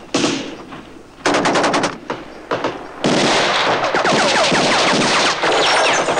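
Automatic gunfire from an old war film's soundtrack. A short rattle of rapid shots comes about a second in, and sustained rapid firing runs from about halfway on.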